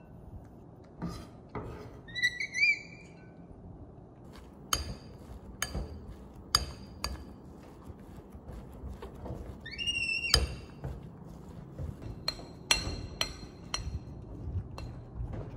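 Clinks and knocks of kitchen utensils and dishes being handled. Two short, high, rising squeaks stand out, one about two seconds in and one about ten seconds in.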